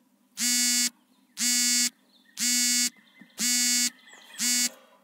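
Smartphone alarm clock going off: a buzzy electronic beep repeated about once a second, five times in all, then stopping near the end.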